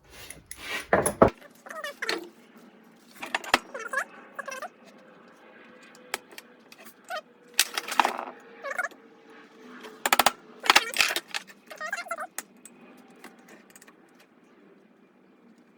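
Irregular metal clinks and taps, some ringing briefly, as steel pliers work at the small key in the keyway of a Harley-Davidson flathead flywheel half and bump the roller-bearing parts.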